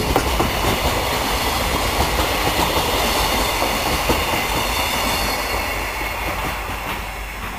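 Wheels of the last Koki container wagons of a freight train rolling past on the rails, with scattered clacks. The train noise fades steadily over the last couple of seconds as it moves away.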